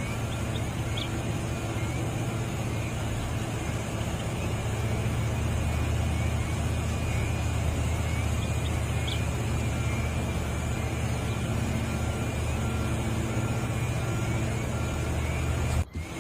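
Heavy diesel engine of earthmoving equipment running steadily with a low drone. Near the end the sound drops out abruptly for a moment.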